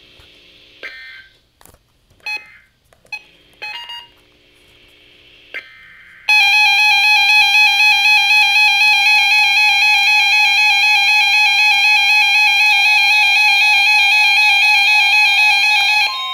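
Emergency Alert System data bursts: several short electronic chirps over the first six seconds, closing one warning and leading into the next. Then the EAS attention tone sounds, loud and steady with a slight warble, for about ten seconds.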